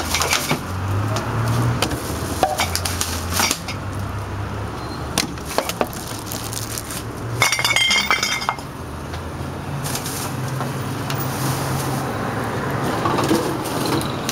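Rubbish being sorted by hand: plastic bags rustling and being handled, with scattered knocks and clicks, and a short run of ringing clinks about eight seconds in. A low hum runs underneath.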